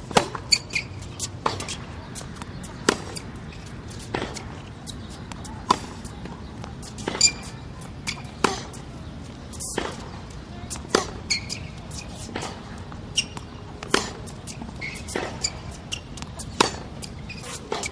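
Tennis ball struck with a racket again and again in a steady rhythm of play, a sharp hit about every one and a half seconds, with fainter bounces between.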